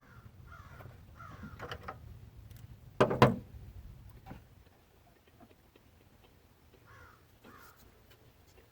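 Crows cawing, three caws near the start and two more near the end, with a single loud clunk about three seconds in.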